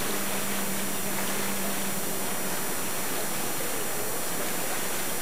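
Steady hiss of outdoor background noise with a low, steady hum that stops about halfway through.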